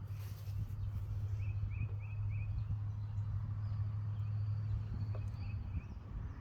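Outdoor ambience: a small bird chirping, four quick calls in a row about a second and a half in and a few more near five seconds, over a low steady hum.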